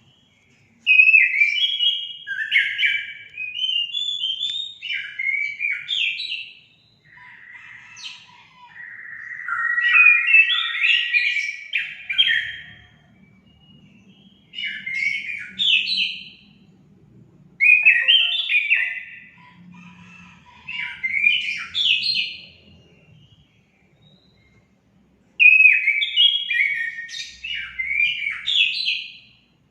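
Orange-headed thrush singing: about five loud bursts of rapid, varied warbling phrases, each a few seconds long, separated by short pauses.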